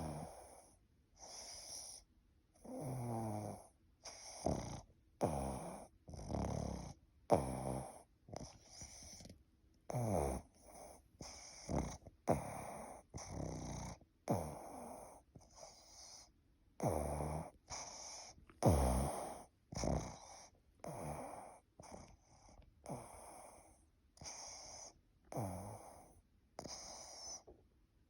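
Snoring: short snores about once a second, some loud with a falling pitch, between quieter breaths.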